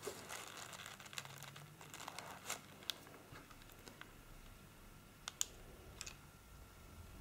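Faint rustling and a few light, sharp clicks of nuts in their shells being handled and set onto the wreath, the loudest click about five seconds in.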